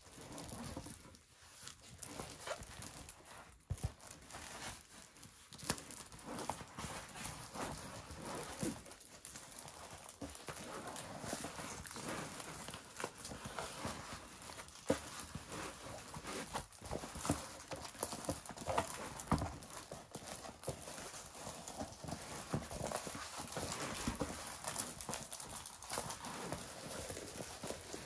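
Irregular small clicks, taps and rustles of a diamond painting kit being handled: the printed canvas and its plastic film moved and touched while it is searched over.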